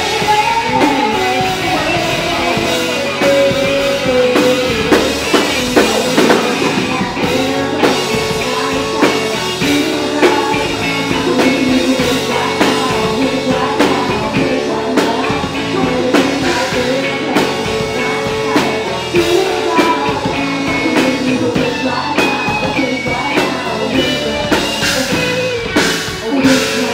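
Live rock band playing: a woman singing into a microphone over a hollow-body electric guitar and a drum kit.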